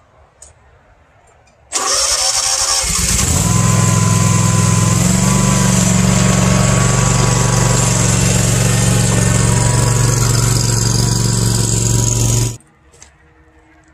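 A small mower engine starts about two seconds in, runs steadily with a step up in pitch a few seconds later, and cuts off suddenly after about ten seconds.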